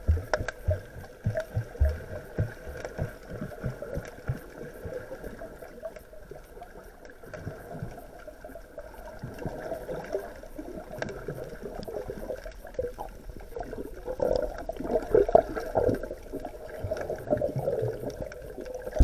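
Muffled underwater water noise from a swimmer's submerged camera: uneven sloshing and gurgling, with a run of low knocks in the first few seconds. It grows louder into bubbly gurgling from about three-quarters of the way in, as a snorkeler dives trailing air bubbles.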